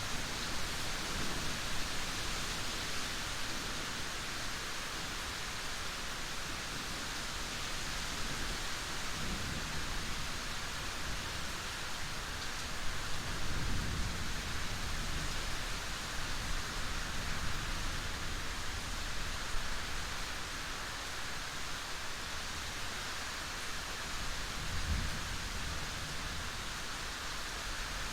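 Steady, even rain, with a few low rumbles swelling and fading, the clearest about halfway through and near the end.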